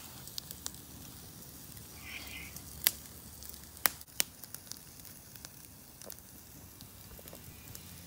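Small wood campfire burning with a steady low hiss of sizzling food on the grill over it, broken by a few sharp crackling pops, the loudest about three and four seconds in.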